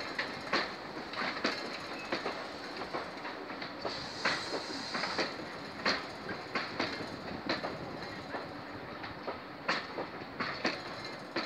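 Railway passenger coaches rolling past, their wheels clicking over the rail joints at an uneven pace of about one or two clicks a second, over a steady running noise.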